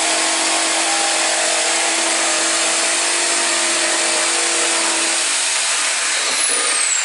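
Bosch jigsaw running and cutting through a pine board: a loud, steady cutting noise with a motor hum under it. Near the end the hum fades and a faint whine falls in pitch.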